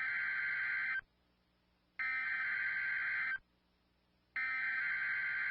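Emergency Alert System SAME header: three bursts of digital data tones, each a little over a second long with about a second's pause between, sent to open a required weekly test. The first burst is already sounding and ends about a second in, the second runs from about two to three seconds in, and the third starts near the end.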